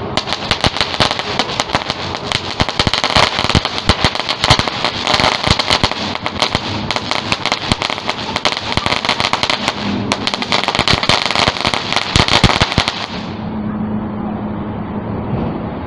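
A string of firecrackers going off in a dense, rapid crackle of pops, stopping abruptly about 13 seconds in. A steady low hum follows.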